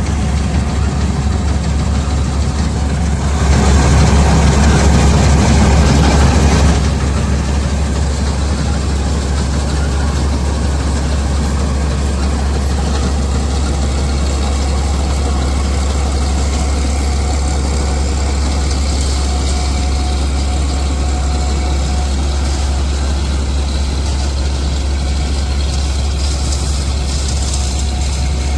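Diesel engine of farm machinery running steadily with a deep low hum. It runs louder for a few seconds, starting about three and a half seconds in.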